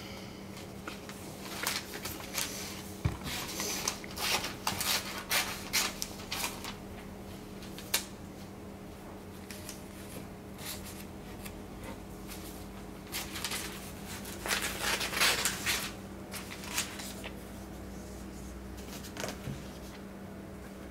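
Scattered rustling and clicking, in two clusters with a single sharp click between them, over a steady low hum.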